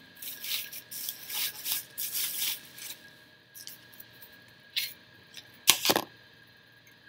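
Plastic bubble wrap crinkling and rustling as it is pulled off a metal ornament, then a few light clicks and, near the end, a sharp clack as the piece is handled.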